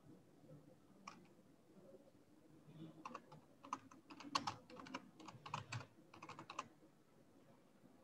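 Faint typing on a computer keyboard: one keystroke about a second in, then a quick run of keystrokes from about three to nearly seven seconds in.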